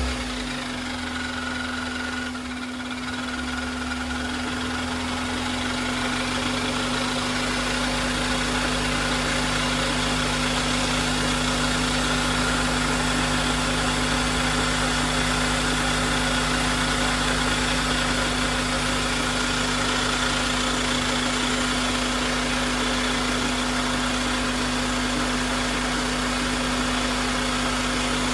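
Honda Accord engine idling, settling into a steady idle after the first few seconds, with some extra noises that the owner says could be due to a couple of things. The engine has just been started after sitting for two to three months and is running without coolant.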